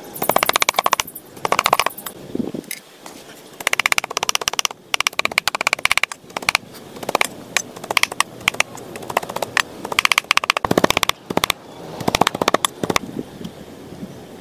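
Heavy cleaver chopping fast on a round wooden chopping block, mincing raw red meat: quick runs of knocks in several bursts with short pauses, stopping near the end.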